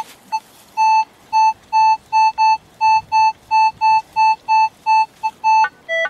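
Minelab metal detector giving its target tone: a steady mid-pitched beep repeated about two to three times a second as the coil sweeps back and forth over a buried target. The signal comes back clean on every pass, which the detectorist reads as a good target. Near the end the tone changes to a few higher and lower beeps.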